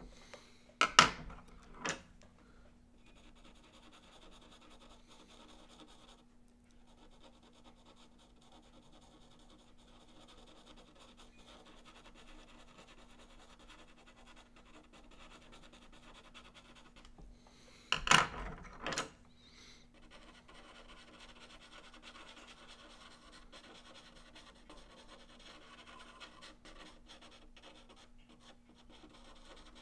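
Soft pastel pencil scratching and rubbing lightly on paper as color is laid into a charcoal drawing, a faint, steady scratching. Two pairs of short, louder noises break in, one pair near the start and one about two-thirds of the way through.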